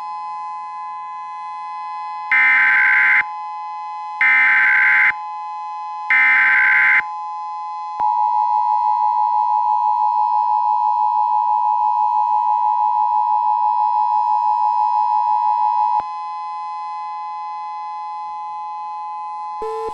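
Emergency Alert System activation: three one-second bursts of SAME header data about a second apart, followed by the two-tone EAS attention signal held for about eight seconds, announcing a tornado emergency. A steady two-note electronic tone sounds underneath throughout.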